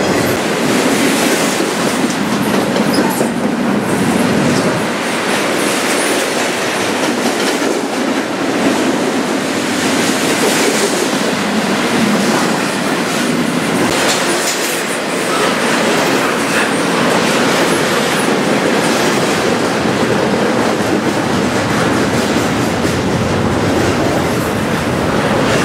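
Double-stack container well cars of a Canadian Pacific freight train rolling past close by. Their steel wheels make a steady, loud rolling noise on the rails, with frequent clicks and clatter.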